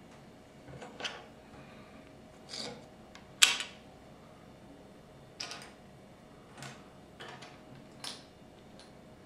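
Lego plastic pieces being handled and fitted on a wooden tabletop: a scattering of short, sharp clicks and taps, the loudest about three and a half seconds in.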